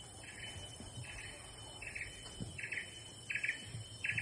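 Rainforest wildlife: a short buzzy chirp repeating about every three-quarters of a second and growing louder, over a steady high-pitched insect drone.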